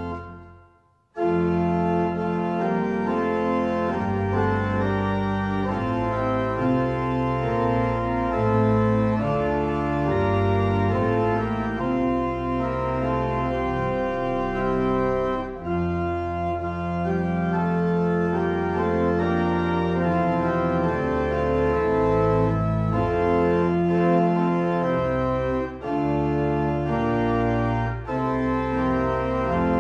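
Organ playing slow, sustained chords. Near the start the sound fades out for under a second, then the organ comes back in.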